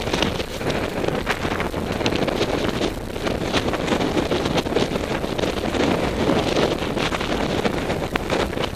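Wind buffeting the microphone: a steady rushing noise with frequent crackles as gusts hit it.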